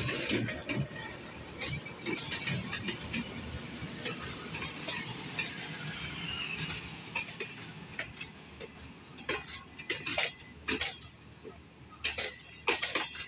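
Train wheels running over rail joints and points, giving irregular sharp metallic clicks and clanks over a light rushing hiss, with a cluster of louder clanks near the end.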